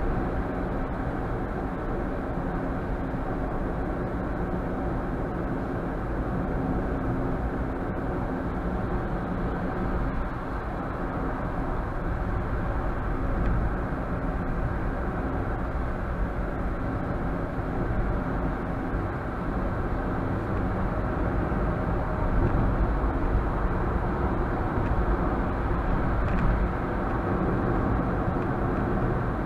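Steady road and engine noise inside a moving car's cabin, as picked up by a dash cam's microphone, with a low rumble and no sudden events.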